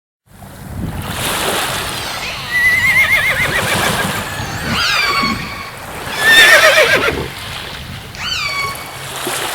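Horses whinnying about four times: high, quavering calls that fall away in pitch, the loudest a little past the middle, over a steady rushing background noise.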